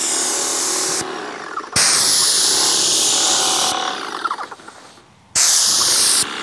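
Graco Project Painter Plus airless sprayer laying polyurethane through a large open tip: loud hissing spray that stops about a second in, starts again for about two seconds, and comes back in a short burst near the end as the gun trigger is pulled and released.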